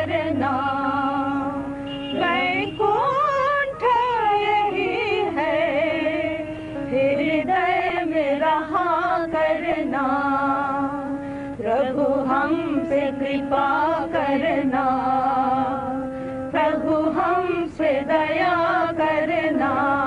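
A devotional song: a sung melody with long, wavering held notes over accompaniment.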